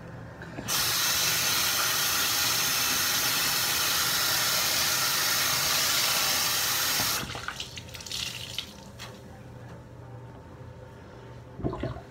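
Bathroom sink faucet running, water pouring into the basin as a sponge is rinsed under it. It comes on about a second in and is shut off abruptly about seven seconds in, followed by a few light knocks near the end.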